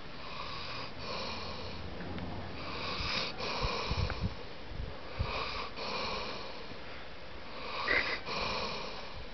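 A dog snoring in its sleep: four slow snoring breaths about two and a half seconds apart, each in two parts. A few soft low bumps come near the middle.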